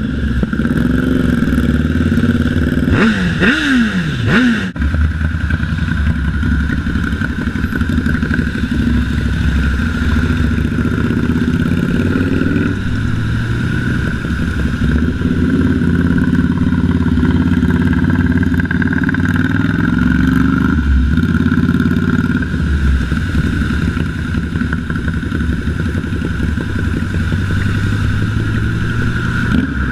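Motorcycle engine running under way, revved quickly up and down a few times about three to four and a half seconds in, then held at a fairly steady speed.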